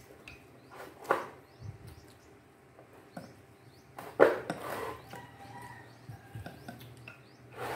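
Eating from ceramic bowls: chopsticks and spoons knocking and clinking against the bowls in scattered short clicks. The loudest knock comes about four seconds in.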